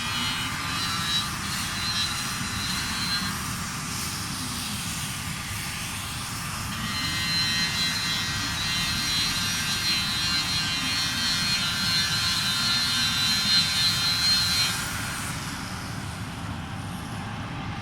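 Steady machinery noise: a low rumble under a high whine that drops out after about three seconds, comes back stronger about seven seconds in, and cuts out near the end.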